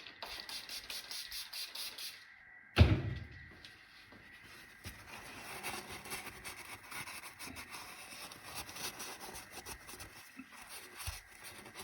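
Rag scrubbing a metal gasket surface with acetone, a rapid run of fine rubbing strokes that goes on, with a single sharp knock a little under three seconds in.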